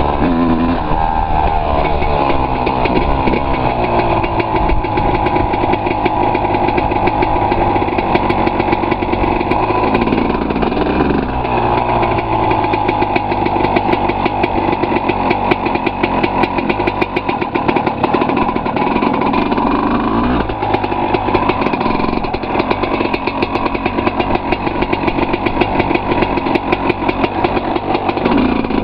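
Honda CR250 motocross bike's single-cylinder two-stroke engine running while being ridden. The revs climb and fall, with a few sudden drops in pitch like gear changes. A dense clatter from vibration runs through it.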